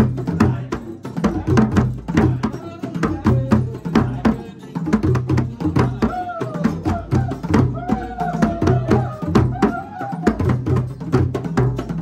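Djembe ensemble playing a fast, dense rhythm of hand strikes over a repeating deep bass pattern. A voice sings over the drums about midway through.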